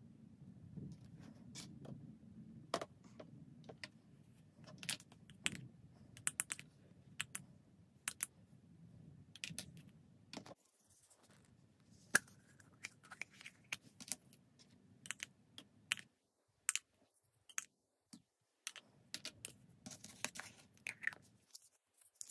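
Small hard-plastic toy teapot and tea-set pieces being handled: irregular light clicks and taps of plastic on plastic, over a low hum that cuts out twice.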